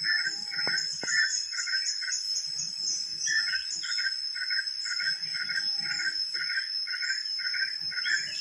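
Insects chirping in a regular rhythm, about two to three chirps a second, over a steady high-pitched drone. Underneath, faint low churning from a top-loading washing machine washing, with no groan or howl.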